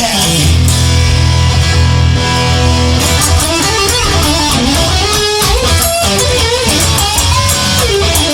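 Music: an instrumental guitar passage of a song, with electric guitar over held low bass notes and no singing.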